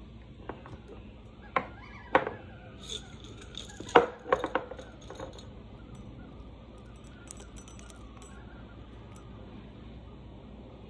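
Several sharp knocks and clinks of kitchen things handled on a counter, the loudest about four seconds in, then a scatter of small light clicks as whole cloves drop into a ceramic mug.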